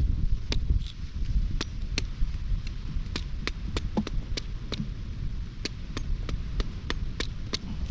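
Repeated sharp knocks, irregular at two to three a second, as a green coconut is struck and worked open with a wine-bottle corkscrew. A low wind rumble on the microphone runs underneath.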